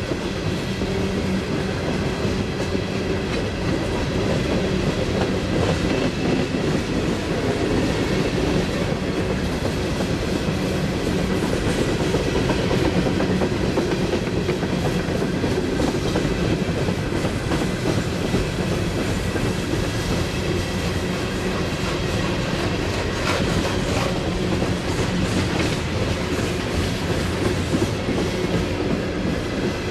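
Freight train of empty hopper cars rolling past, the steel wheels clicking over the rail joints with a steady rumble.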